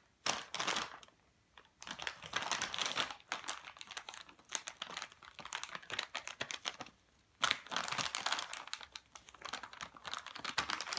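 Plastic treat pouch crinkling in irregular bursts as a golden retriever puppy noses and paws at it, stopping briefly about a second in and again near seven seconds.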